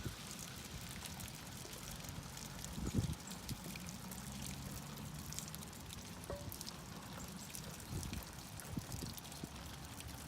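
Hot water being poured onto a car bumper, trickling and splattering down it, with a soft knock about three seconds in.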